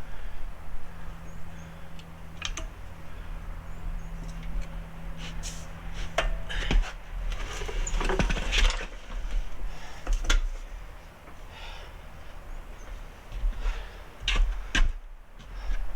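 Scattered metallic clinks and knocks of tools and suspension parts being handled, with a cluster of clatter about halfway through, over a steady low hum.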